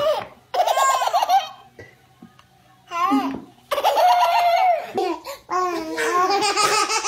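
Babies laughing in repeated bursts of high-pitched giggles and belly laughs, with short pauses between them.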